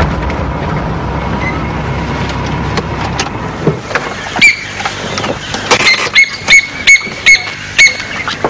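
A car's engine runs as it pulls up and stops, and its low rumble ends about three seconds in. Then comes a run of short, high, squeaky chirps, two or three a second.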